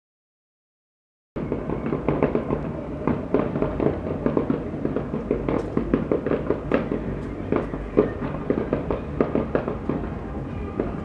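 Fireworks display crackling and popping: a dense run of rapid sharp pops and bangs, starting after about a second of dead silence.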